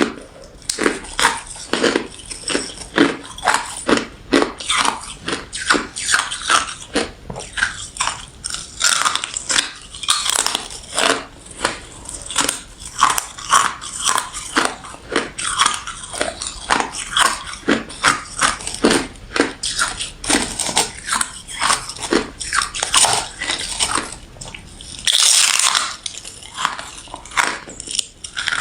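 Refrozen crushed ice and freezer frost being bitten and chewed close to the microphone: a dense run of crisp crunches, several a second, with one louder, longer crunch near the end.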